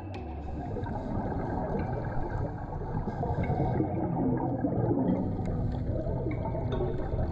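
Underwater ambience picked up by a camera in its dive housing: a dense, muffled low rush of water with the gurgle of scuba regulator exhaust bubbles.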